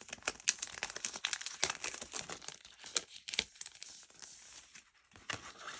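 Plastic packaging of a craft stencil pack crinkling and crackling as it is opened and the plastic stencils are slid out, a run of rustles and sharp crackles that thins out about four seconds in and picks up again near the end.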